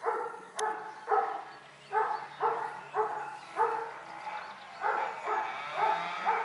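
Rottweiler giving a rapid string of about a dozen short, pitched barks, roughly two a second.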